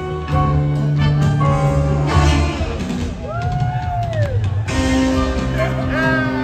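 Live band playing an instrumental passage on electric guitar, upright bass and drum kit. Around the middle, a held note bends up and slides back down.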